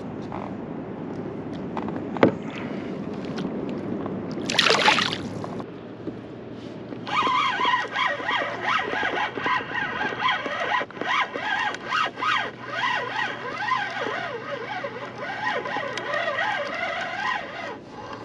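Fishing reel being cranked as a rockfish is reeled up from the bottom, its gears whining in a pitch that wavers up and down and pulses with each turn of the handle. Before that, a brief rushing hiss about five seconds in.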